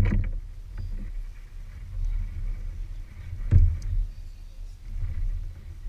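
Handling noise in a plastic kayak while a large snook is held across the lap: a low steady rumble with faint small clicks and one sharp knock about three and a half seconds in.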